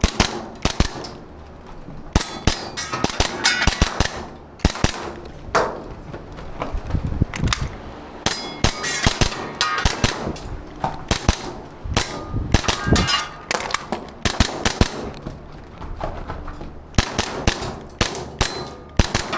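Airsoft pistol fired in quick strings of shots during an IPSC stage run, with sharp metallic clangs of BBs hitting steel targets mixed in, and short pauses between strings.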